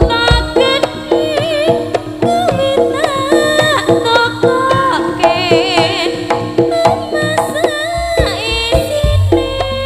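Javanese jaranan music: hand drums beat a quick, even rhythm under a steady low held tone, with a high wavering melody line bending over the top.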